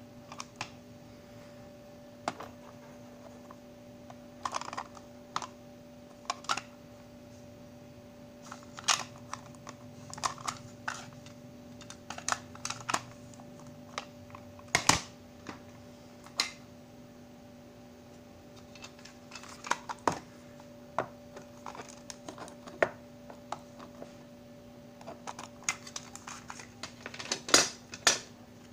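Compact cassettes and their clear plastic cases clicking and clacking as they are handled and opened: irregular sharp plastic clicks, some in quick clusters, the loudest near the end. A faint steady hum runs underneath.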